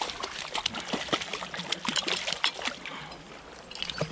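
A hooked trout splashing at the surface of the pond while it is played in. The splashes are quick and irregular, densest around the middle, and they thin out in the last second.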